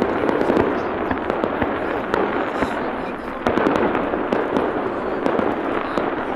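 Fireworks crackling: a dense, continuous run of rapid small pops, with a fresh surge of crackle about three and a half seconds in.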